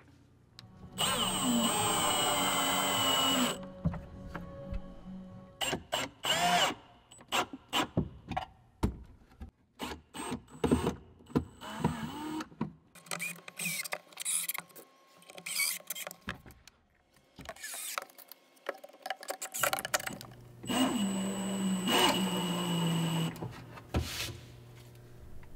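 Cordless drill/driver driving screws into plywood: two long runs, one about a second in and one near the end, each a motor whine that drops in pitch as it goes. Between them comes a string of short sharp clicks and knocks.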